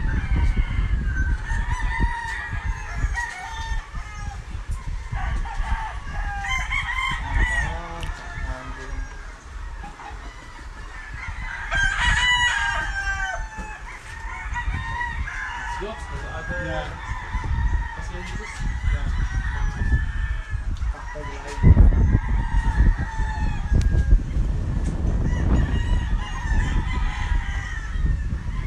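Many gamecocks crowing, their crows overlapping one another. A low rumbling noise runs underneath and grows louder about three quarters of the way through.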